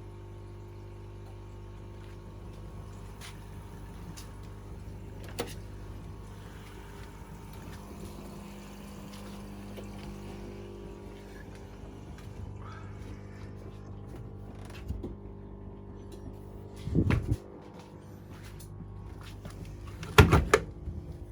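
Washing machine running with water moving in the drum over a steady hum; two short, loud knocks near the end.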